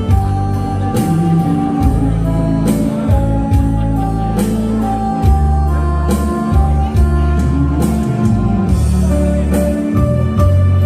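Instrumental introduction of a pop ballad backing track: a steady bass and drum beat under a sustained melodic line.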